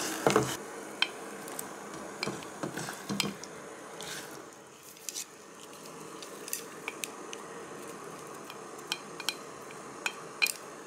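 Wooden chopsticks and a serving spoon clicking and tapping against a pot as chicken thigh pieces are moved and bamboo shoots and carrot are added, over a faint steady hiss from the hot pot.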